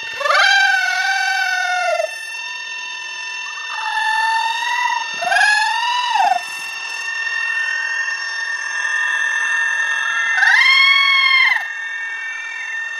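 A woman's high-pitched, wordless wailing: several drawn-out cries that rise and fall, each one to two seconds long, with the loudest near the start and about two thirds of the way through. A steady high whine sits behind them.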